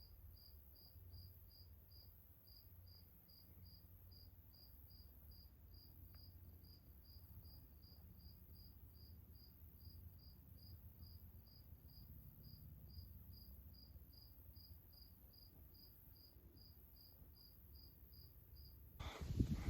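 Faint insect chirping at a steady, even pace, about two chirps a second, over a low wind rumble; a louder noise breaks in just before the end.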